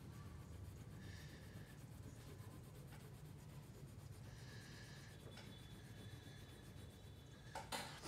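Faint scratching of a crayon rubbed back and forth on paper as a shape is coloured in, with a few light clicks near the end.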